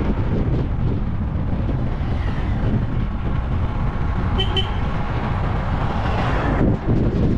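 Two short, high vehicle-horn toots in quick succession about four and a half seconds in, over a steady low rumble of road traffic.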